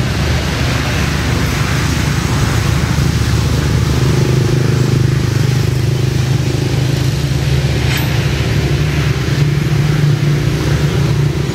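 A motor engine running steadily nearby, a constant low hum that rises a little in level about four seconds in. A single short click about eight seconds in.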